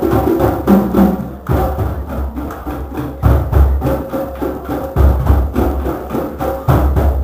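A drum circle playing a rhythm together: many drums struck at once, with deep bass hits and sharp, crisp strokes above them. The playing thins briefly about a second and a half in, then goes on as before.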